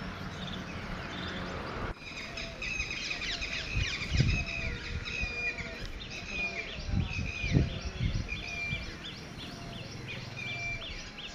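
A steady low hum for about the first two seconds. After an abrupt change, birds chirp over and over, with short high calls about two a second, and a few dull low thumps come in the middle.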